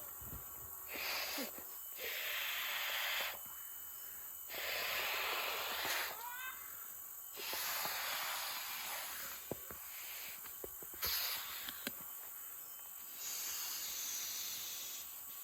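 Repeated breaths blown into an inflatable camping pillow's valve: about six hissing blows of a second or two each, with short pauses between them. A battery air-mattress pump runs faintly and steadily underneath.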